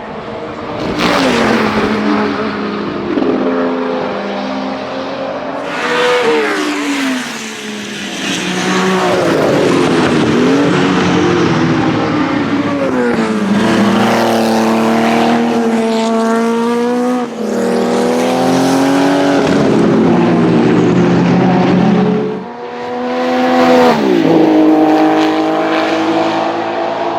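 1979 Porsche 935 Turbo Kremer K3's twin-turbo flat-six racing engine driven hard on track, its pitch climbing and falling repeatedly through the gears, with sudden drops as the throttle is lifted.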